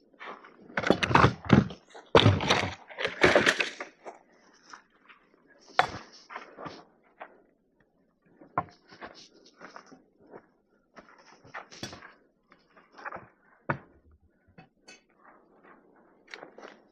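Irregular knocks, clatter and scraping, as of things being handled. The sounds come thickest and loudest about one to four seconds in, then thin out to scattered clicks and taps.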